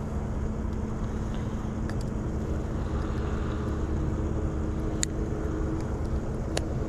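Steady low outdoor rumble with a faint hum, and two sharp clicks in the last couple of seconds as a plastic screw cap is twisted off a bottle.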